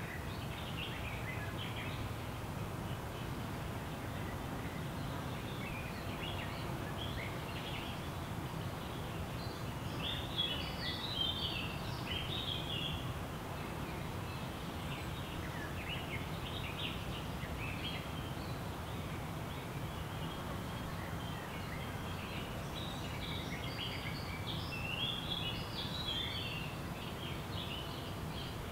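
Small songbirds chirping and twittering in woodland, with two busier spells of calls, about ten seconds in and again near the end, over a steady low rumble.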